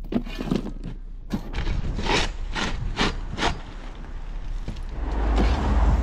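Steel shovel scraping and crunching into a heap of crushed stone aggregate, a run of short strokes with four in quick succession around the middle. A louder rushing noise with a low rumble comes in near the end.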